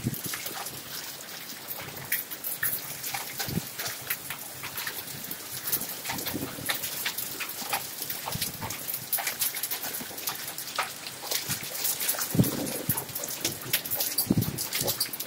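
Hailstones falling with heavy rain onto a concrete yard: a dense, irregular clatter of small sharp impacts over the steady hiss of rain, with a few louder knocks near the end.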